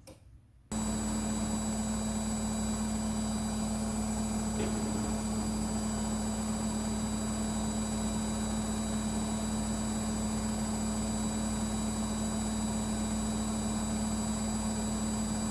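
Midea front-loading washing machine running at a steady spin: a constant motor hum with a strong low tone and fixed higher whines over a noise bed, starting and stopping abruptly.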